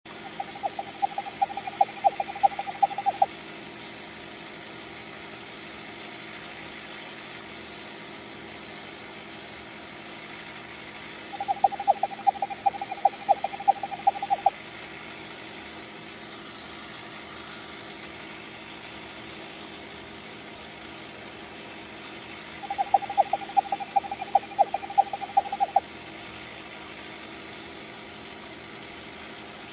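Motorized Gilbert Erector DEW Line Radar model running steadily with a constant motor-and-gear hum. Three times, about eleven seconds apart, a burst of rapid clicking lasting about three seconds comes from its mechanism as the compound movement cycles.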